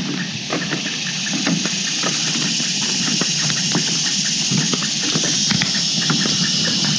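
Footsteps on a wooden boardwalk, an irregular run of soft knocks on the planks, over a steady high hiss.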